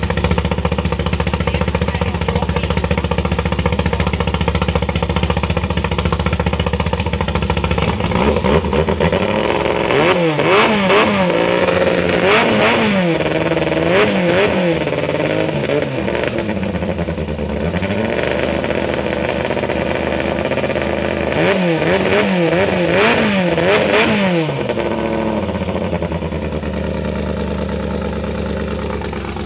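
Engine of a Thai hot-rod longtail racing boat idling, then revved up and down in quick repeated blips for several seconds, idling again briefly and blipped a second time about three quarters of the way through, before settling back to a steady idle.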